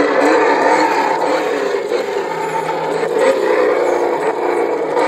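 Simulated engine note played by a Traxxas sound system fitted in an RC monster truck, its pitch wavering up and down as the truck drives.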